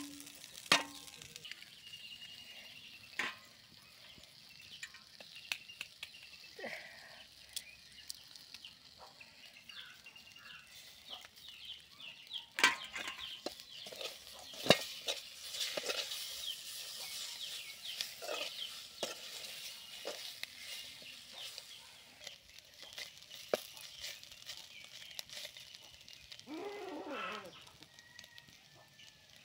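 Metal spatula scraping and knocking against a steel kadai as drumstick leaves and eggs are stir-fried over a wood fire, with a sizzle that builds through the middle. A bird, likely a chicken, calls briefly near the end.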